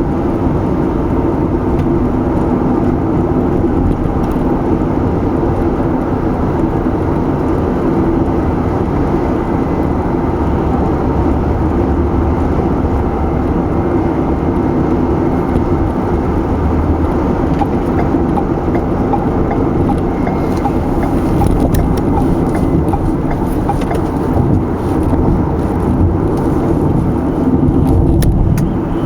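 Car driving at a steady speed: a constant rumble of tyre and engine noise.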